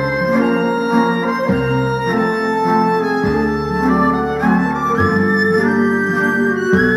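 Background instrumental music: held melody notes over a bass line that changes every second and a half or so.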